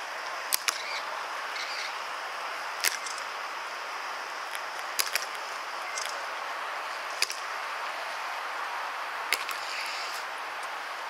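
Hobnailed tsarouchia shoes of ceremonial guards stamping on marble paving in a slow march: sharp clacks about every two seconds, some in close pairs as the two guards' feet land just apart. A steady hiss of outdoor background noise lies under them.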